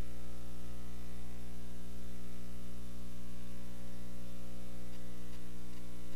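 Steady electrical mains hum, a low buzz with many evenly spaced overtones. A few faint clicks come near the end.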